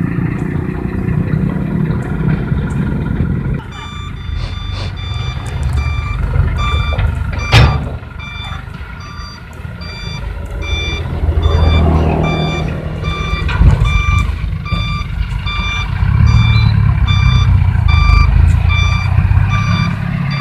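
Dump truck diesel engines running at low speed, with a truck's reversing alarm beeping repeatedly from about four seconds in. A sharp knock comes near the middle.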